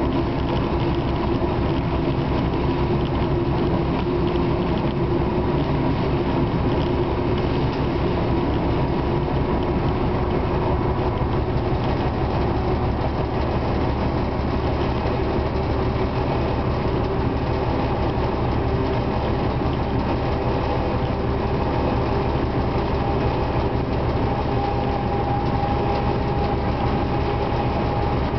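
Class 749 diesel locomotive under way, heard from its cab: the six-cylinder diesel engine running steadily with the wheels rolling on the rails. A humming tone in the drone fades about halfway through, and a higher tone comes in near the end.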